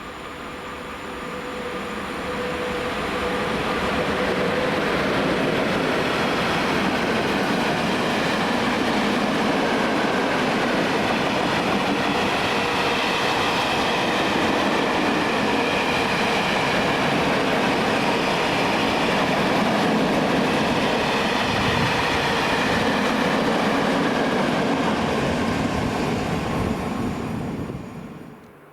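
Freight train passing at speed, its wagons rolling and rumbling over the rails. The sound builds over the first few seconds, holds steady, then cuts off just before the end.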